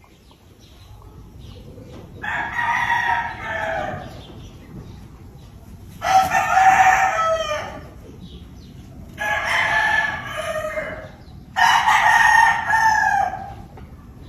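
Gamefowl roosters crowing: four long crows about three seconds apart, each lasting close to two seconds.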